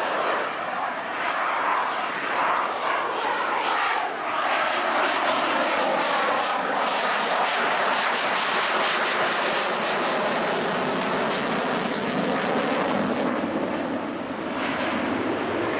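Saab JAS 39C Gripen's Volvo RM12 turbofan engine, loud and continuous as the fighter flies a display pass, with a hollow sweeping tone that slides slowly down in pitch and then climbs back up near the end.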